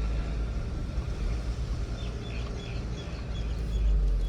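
A car driving along, its engine and tyres giving a steady low rumble that swells a little near the end, with a few faint bird chirps about halfway through.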